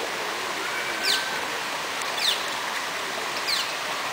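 Three quick, high, falling whistle calls, about a second apart, typical of a bird, over a steady rushing background noise.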